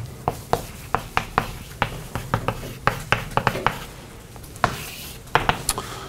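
Chalk on a blackboard as words are written: a quick, irregular string of sharp taps and short scratches, with a few longer scrapes near the end.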